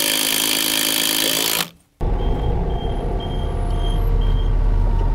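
Kubota skid loader working its boom attachment: for the first couple of seconds the engine and hydraulics run loud and hard. After a short break a low engine rumble carries on, with five short, evenly spaced high beeps of a warning alarm.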